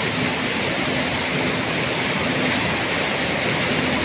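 River in flood, its fast water rushing steadily over rocks.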